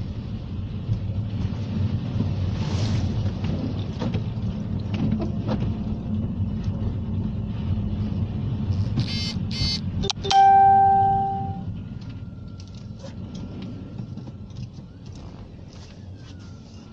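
A steady low rumble with scattered clicks. About ten seconds in, a single loud chime rings out and fades over about a second and a half.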